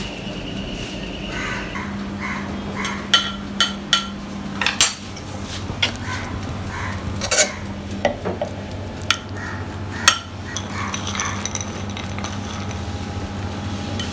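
Kitchen utensils clinking and knocking against dishes while bread pudding layers are assembled: about ten sharp clicks, scattered unevenly, the loudest about five seconds in, over a steady low hum.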